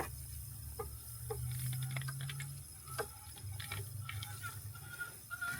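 Chickens clucking softly, short scattered calls, over a steady low hum, with a sharp click right at the start.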